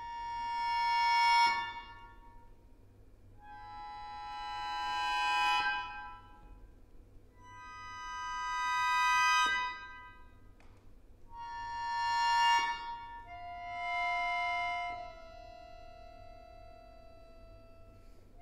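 Solo accordion playing high, reedy chords that swell from soft to loud and cut off suddenly, four times over, then a lower note that swells and is held for several seconds near the end.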